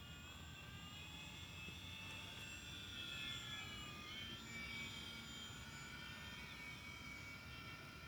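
Radio-controlled scale model Cessna 182 in flight: its motor and propeller give a faint high whine of several tones that slide up and down in pitch as it flies.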